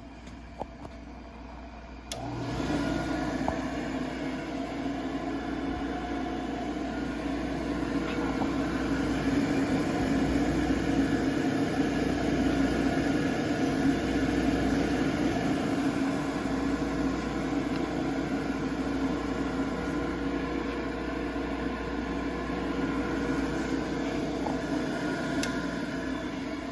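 Electric drill bit grinder switched on with a click about two seconds in, then its motor running steadily with a hum and grinding hiss.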